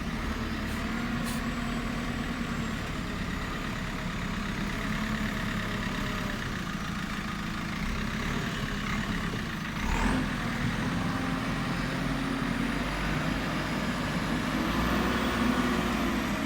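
JCB 3CX backhoe loader's diesel engine running steadily, with a sharp knock about ten seconds in, after which it runs a little louder.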